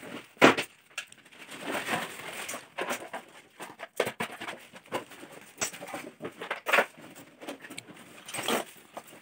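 Irregular rustling, clatter and light knocks of household items being handled and sorted by hand.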